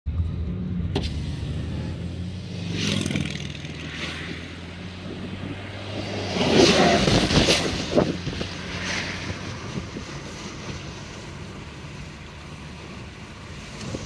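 A car driving, heard from inside the cabin: a steady low engine hum with road and wind noise. Louder rushes of noise swell about three seconds in and again from about six to eight seconds in.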